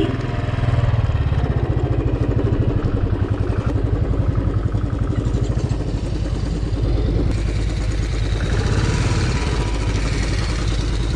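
Motorcycle engine running steadily, its firing pulses even throughout.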